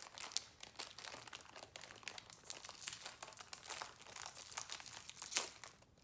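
Wrapper of a Shirley biscuits packet crinkling and tearing as it is opened by hand: a steady run of sharp crackles, with a louder crackle near the end.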